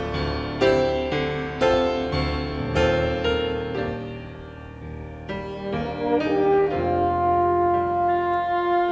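Instrumental break of a gospel ballad: piano chords struck about once a second, fading a little near the middle, then long held orchestral notes swelling in from about seven seconds in.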